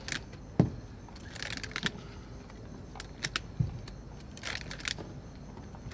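Rubber bands being stretched and snapped onto a watermelon, with scattered short clicks and rustles of bands being handled, and one louder knock about half a second in.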